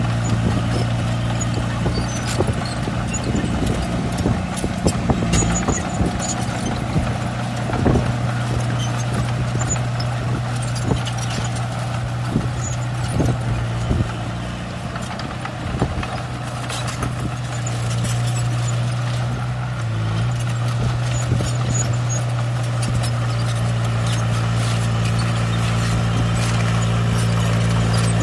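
Bulldozer's diesel engine running steadily under load, with frequent short clanks and knocks from its tracks and the stone it pushes. The engine note dips for a few seconds about halfway through, then comes back up.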